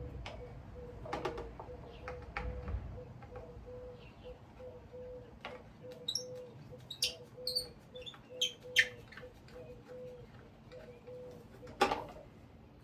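Scattered clicks and light metallic clinks of ceiling fan parts being handled, with the loudest click near the end, over a faint tone that pulses about twice a second.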